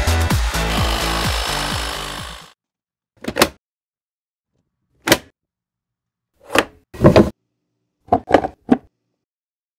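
Background music ends about two and a half seconds in, then a handful of short, sharp plastic clicks and knocks spaced a second or so apart, some in quick pairs, from an 18V lithium-ion battery pack being fitted into the bay of a Makita 36V (18V+18V) cordless lawn mower and the mower being handled.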